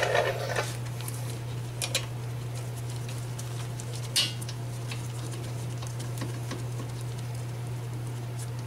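A few light metallic clicks as a rear disc-brake caliper and its bolts are handled, over a steady low hum.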